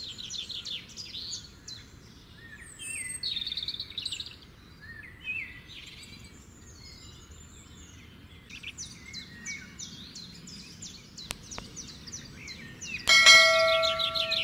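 Birds chirping in quick, high, downward-sweeping runs, with a short lull in the middle. About a second before the end, a loud bell-like chime rings out over them: a notification-bell sound effect.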